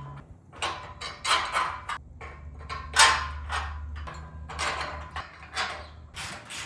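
Assembly parts being handled: a string of short scraping and rustling noises, one or two a second, over a low steady hum.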